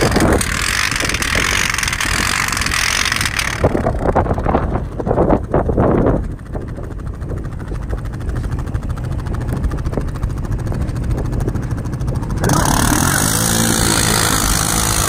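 ATV engine running under load, the sound changing abruptly twice, about four seconds in and again near the end.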